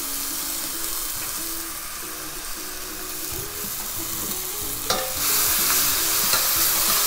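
Shallots, diced tomato and garlic paste sizzling in oil in a hot stainless steel sauté pan. A sharp click comes about five seconds in, after which the sizzle is louder.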